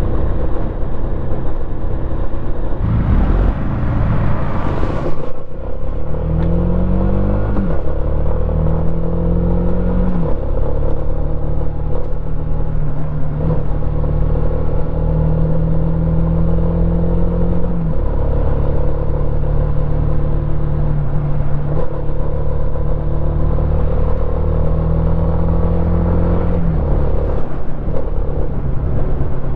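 Suzuki Gixxer 150's single-cylinder four-stroke engine running on the move. It revs up in a few rising runs, then holds a steady pitch at cruising speed, with the revs dropping back a few times.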